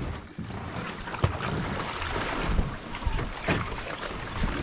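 A canoe being hauled by hand through a reedy swamp: tall grass rustling and scraping along the hull, with wading steps in mud and water and a few sharp knocks.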